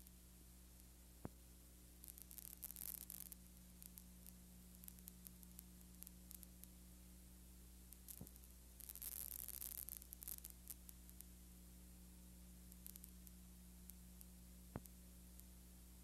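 Near silence: a steady low mains hum and hiss of the recording itself, with two short bursts of crackling static and three single clicks.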